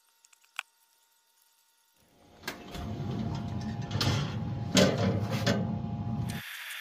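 Near silence for about two seconds. Then wind buffets the microphone outdoors, with several sharp metal knocks and scrapes as a pellet grill's wire rack is handled. About a second before the end, the buffeting gives way to a thinner steady hiss.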